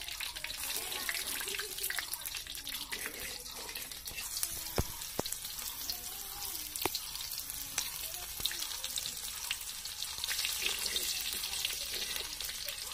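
Hot oil sizzling and crackling steadily in an iron kadai as sliced onion is fried and stirred with a metal spatula. A couple of sharp knocks about five and seven seconds in.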